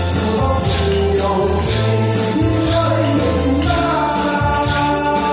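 A man singing a Hakka-language song into a microphone over amplified backing music with a steady percussion beat and bass.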